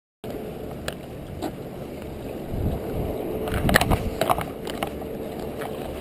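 Wind rumbling on an action camera's microphone, with sea water washing against jetty rocks, starting a moment in. A few sharp clicks and knocks from handling the fishing rod, loudest a little past the middle.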